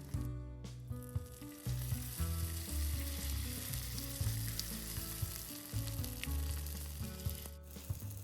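Hot cooking oil sizzling steadily as rice-paper-and-seaweed chips (gimbugak) deep-fry, the sizzle dropping out briefly about half a second in and again near the end.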